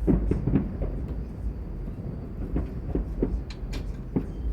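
Fireworks going off: an irregular run of pops and bangs of varying loudness over a steady low rumble.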